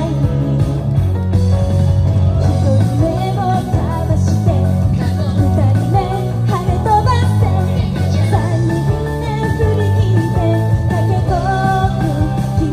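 Female idol group singing an upbeat J-pop song, Sanfrecce Hiroshima's official support song, live over a loud backing track with a heavy, steady bass line.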